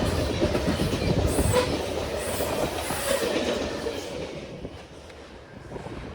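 Freight cars of a Norfolk Southern manifest train rolling past, their wheels clacking over the rail joints with a faint squeal. The sound fades steadily over the first five seconds.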